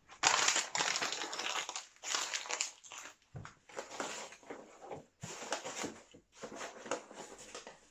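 Packaging rustling and crinkling as a hand digs through a packed box, in irregular handfuls with short pauses between.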